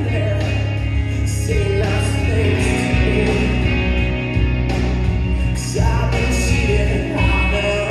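Music with singing over a steady bass and beat.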